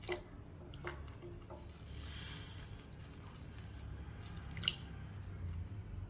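Water splashing and dripping in a metal pot as wet herb slices are dropped in by hand: a few small splashes in the first second or two, a short spell of splashing about two seconds in, and a sharp clink a little before the end.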